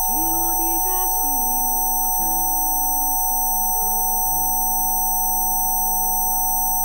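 Several steady pure sine tones held at once, of the kind played in a Rife frequency-therapy session. Beneath them, soft lower tones change pitch every second or so, some with bends.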